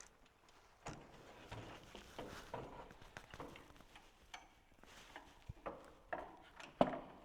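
Irregular knocks, clicks and shuffling of a heavy car battery being carried and handled in an aeroplane, with a sharper knock near the end.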